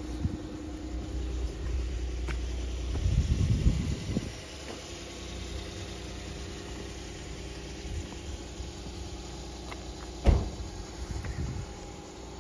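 A car engine running steadily with a low hum, swelling louder for about a second around three seconds in. A single sharp knock comes about ten seconds in.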